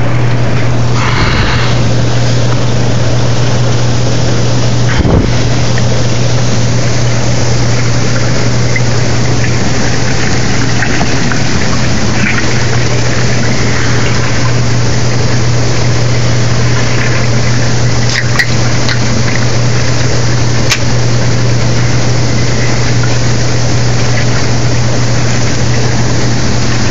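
Hot tub jets running: water churning and bubbling over a steady low hum from the jet pump.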